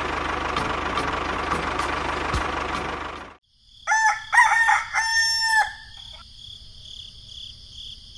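A toy tractor's small motor running, fading out about three seconds in. Then a rooster crowing, the loudest sound, over a steady high chirring of crickets.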